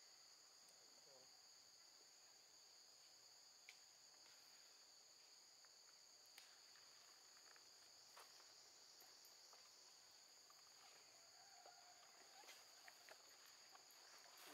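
Faint, steady high-pitched chorus of forest insects, with a few faint clicks scattered through it.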